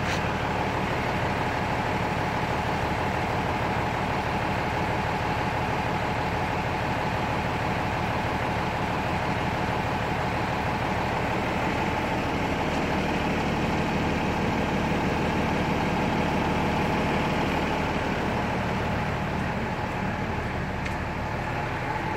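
Steady mechanical drone like an idling engine: an even low hum with a steady higher tone over it, holding level without change.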